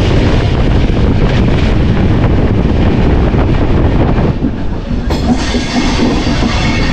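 Indian Railways express passenger train running at speed, heard from an open coach doorway: a heavy rumble of wheels on track with frequent clattering knocks over rail joints. About four seconds in the sound drops and changes to a slower run with a steady high metallic squeal from the wheels.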